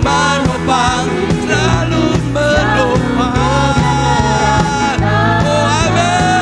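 A full band playing a pop-rock worship song, with a gliding melodic lead over steady bass and regular drum beats.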